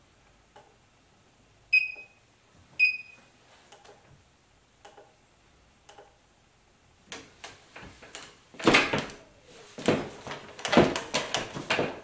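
An electric scooter (a Bird scooter running a Xiaomi M365 controller board) beeps twice, two short high electronic beeps about a second apart, a sign it has powered on. Light clicks follow, then from about seven seconds a run of louder knocks and rattles as the scooters are handled.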